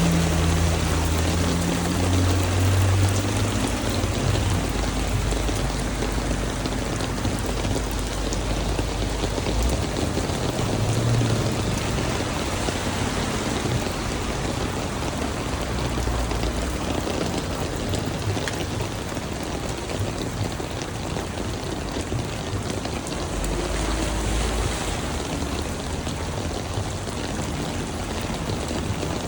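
Heavy rain falling steadily, a dense even hiss of drops on water and hard surfaces, with a few brief low rumbles now and then.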